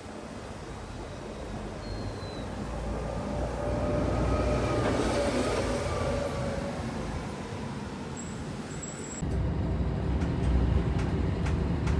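A vehicle running, most like a train heard from on board: a steady low rumble with a faint whine. About nine seconds in it changes abruptly to a louder rumble with light clicks.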